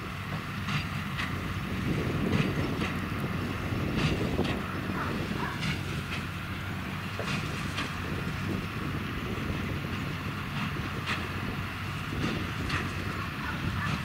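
John Deere 8410 tractor's six-cylinder diesel running steadily under load while pulling a New Holland BB9080 big square baler, with repeated clicks and knocks from the baler's mechanism as it packs corn stalks into bales.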